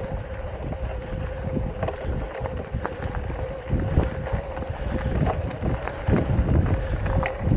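E-bike motor whining steadily under pedal assist, with irregular clicks and knocks from the crank and drivetrain. This is the rattle the rider likens to marbles and suspects may be the chain trying to jump a rear sprocket. Wind rumbles on the microphone.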